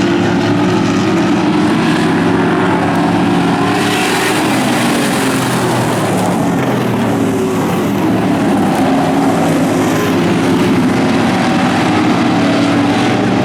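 Several street stock race cars' engines running hard together, their pitches rising and falling as they race around the track.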